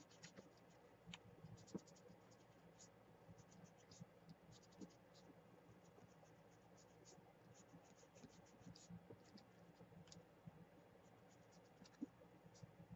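Faint scratching and rubbing of fingers and a damp sponge on a sheet of paper, dotted with many small crisp ticks.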